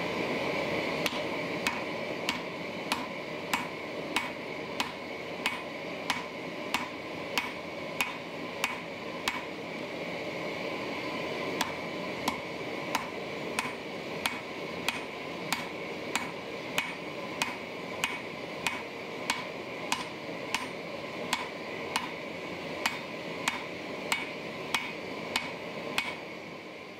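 Cross-peen hand hammer striking a hot forge-welded san mai steel billet on an anvil, drawing it out with even blows at about three every two seconds. The strikes stop about a second before the end.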